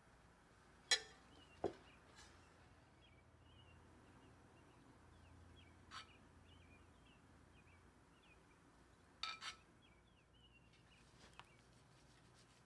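Quiet kitchen with a few sharp clinks of utensils on cookware, about six in all, two of them close together near the end. Faint, rapid high chirps of birds run behind them.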